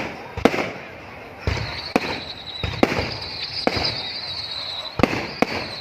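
Aerial fireworks bursting: about seven sharp bangs at uneven intervals, with a high steady whistle running through the middle.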